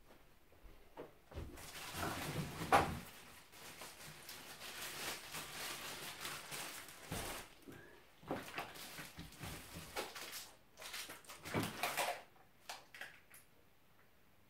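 Packaging being handled: irregular rustling and scraping of wrapping material, with a sharp knock about three seconds in and a few small clicks near the end.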